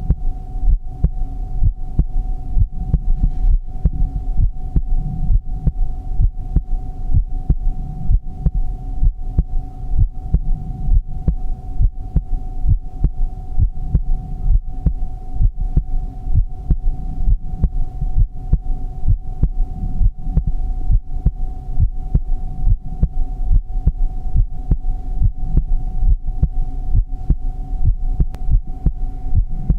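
Heartbeat sound: a steady, even run of low thumps repeating regularly, over a constant steady tone.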